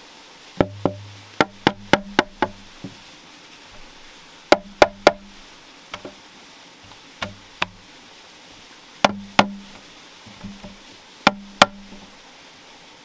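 Hammer blows in irregular groups: sharp knocks, about eight in quick succession in the first three seconds, then bursts of two or three, some leaving a short low ring.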